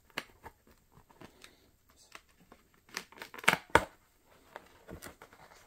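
Screen-protector packaging being torn and crinkled open by hand: scattered rustles and small clicks, with a few sharper crackles a little past halfway.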